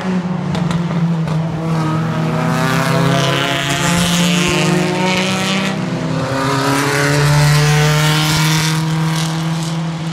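Vintage race car engine running hard through a hairpin and accelerating away, its note rising as it pulls out of the corner.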